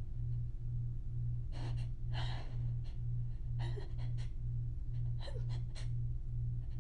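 A woman's short, hitching inhalations, about five of them, as a sneeze builds. Under them runs a steady low hum that pulses about twice a second.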